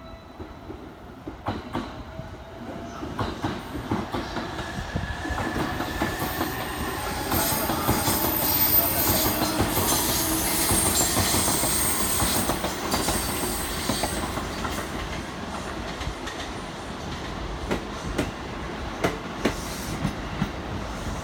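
Electric train running along the platform, building to its loudest after about eight seconds and then running on steadily. There is a faint high whine in the middle, and the wheels click over the rail joints, more often near the end.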